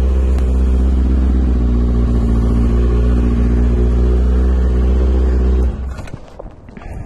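Kawasaki ZX6R inline-four sport bike idling steadily and loudly through its exhaust with the baffle removed, then shut off suddenly near the end.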